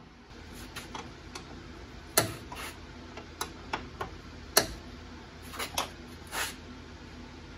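Tools and hardware being picked up and set down: a dozen scattered, irregular clicks and knocks, with two sharper knocks a little over two seconds in and about four and a half seconds in.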